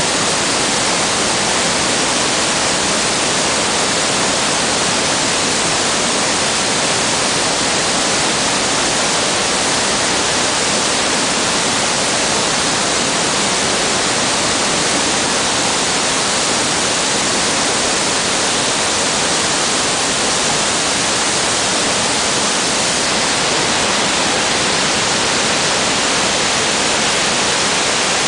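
Iguazú Falls: the steady rush of a great mass of falling water, an even, unbroken noise.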